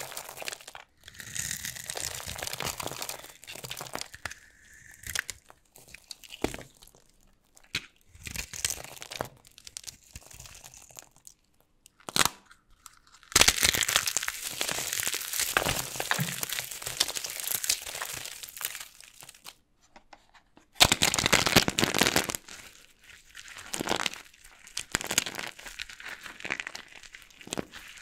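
Dried soap packed with starch being crushed and cut, crunching and crackling in irregular bursts, with a long stretch of steady crumbling about halfway through.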